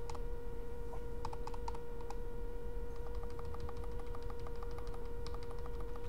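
Light, quick clicks of computer keys: a few about a second in, then a fairly even run of about four a second through the second half, over a steady hum.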